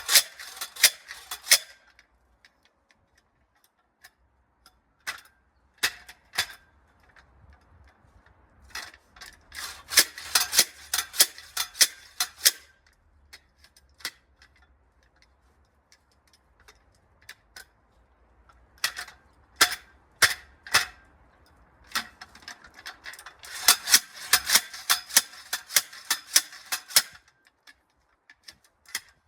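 A post hole digger being worked into the ground: four bursts of rapid sharp clicks a few seconds long as the blades are driven in and the handles worked, with scattered single clicks and quiet pauses between.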